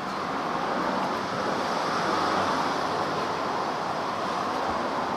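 Dried, baked lotus leaves rustling and crinkling as they are pulled open by hand, a dense crackly rustle that swells in the middle.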